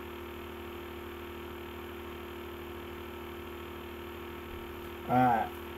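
Steady low electrical hum under quiet room tone, with one short vocal sound about five seconds in.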